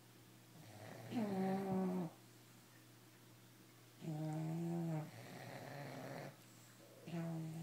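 English bulldogs snoring: three long, pitched, rattling snores about three seconds apart, with softer breathing between them.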